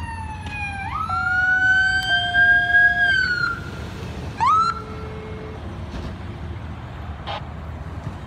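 Electronic siren of a fire department SUV responding with lights: a falling wail, then a rise to a held high note that drops away about three and a half seconds in, and one short upward whoop about a second later. After that the siren stops and only the vehicle and road noise remain.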